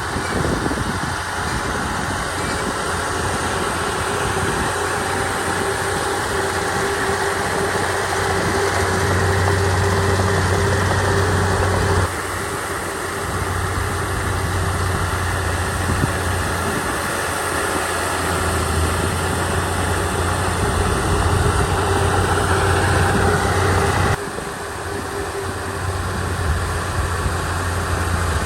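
Komatsu D31 crawler bulldozer's diesel engine running steadily as the machine works, pushing dirt. The sound shifts abruptly twice, about twelve and twenty-four seconds in.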